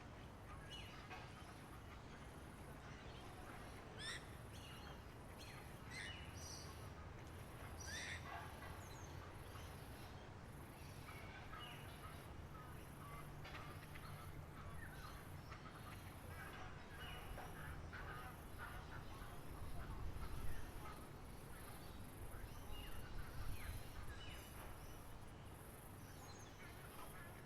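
Wild birds chirping and calling in short, scattered notes over a faint, steady low rumble that swells briefly a few times.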